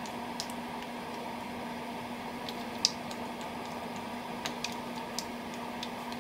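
Wooden spoon stirring a pot of green-lipped mussels in broth: scattered light clicks of shells knocking together, with one sharper click about three seconds in, over a steady hum.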